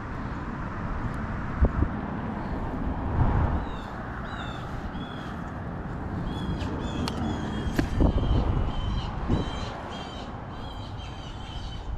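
Birds calling repeatedly from about four seconds in, many short, harsh calls one after another, over a low rumbling noise with a couple of sharp knocks.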